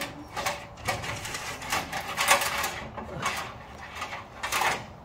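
Irregular rustling and clicking of a bundle of plastic string lights being handled and unwound.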